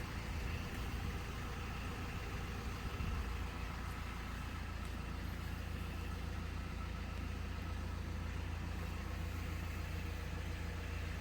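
Vehicle engine idling steadily, a low, even hum with no change in speed.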